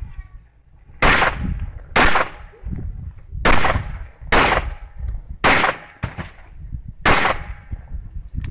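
Six handgun shots fired one at a time at an uneven pace, roughly a second apart.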